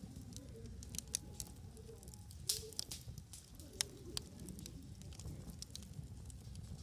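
Wood campfire crackling, with sharp pops about a second in, around two and a half seconds in and near four seconds, over a low steady rumble.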